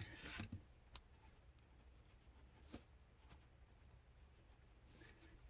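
Near silence with faint scratching of a marker drawing on a panel, and a few light clicks.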